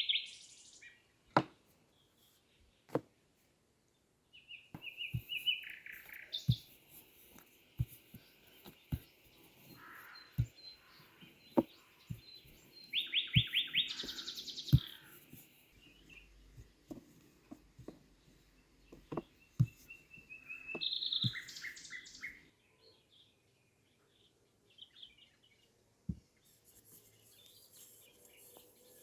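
Songbirds chirping and trilling on and off, with a loud trill about halfway through. Short, sharp clicks and knocks are scattered throughout.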